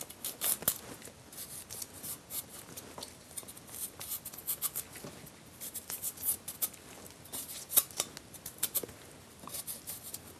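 Chef's knife peeling the fibrous outer skin off Chinese broccoli (gailan) stems: an irregular run of quick, crisp little scrapes and snaps as the blade strips the peel.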